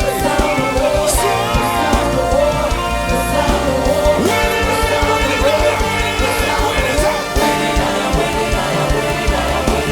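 Christian worship song: a singing voice over a band with a steady drum beat.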